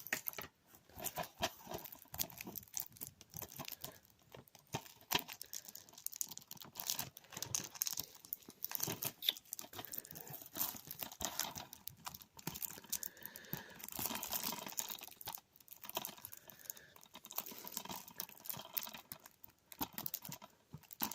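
Plastic shrink-wrap being picked at and torn off a DVD case: irregular crinkling and tearing with many small clicks and taps.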